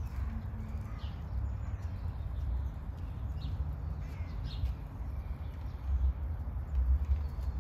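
Low rumble of wind on the microphone, swelling near the end, with a few faint, short bird calls scattered through.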